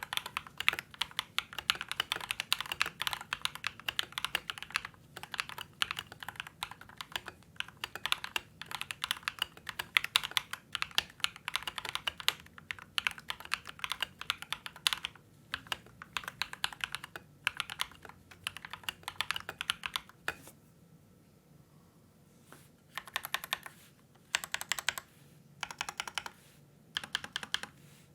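Typing on an LK67 mechanical keyboard with Akko Rose Red linear switches, tape-modded under the PCB for a deeper, poppier sound: a fast run of key clacks for about twenty seconds, a short pause, then several brief bursts of typing.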